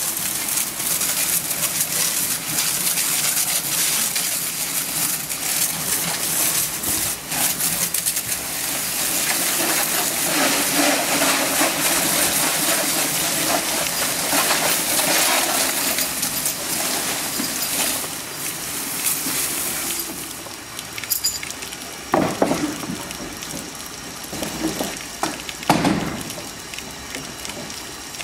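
Pressure washer jet spraying a cattle lorry's steel loading ramp and gates: a steady hissing spray with splashing water, which stops about twenty seconds in, followed by a few knocks.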